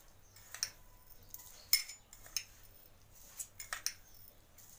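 Metal spoon clinking against the dishes as sugar is spooned into a steel mixer-grinder jar: a few separate clinks, the loudest a little under two seconds in.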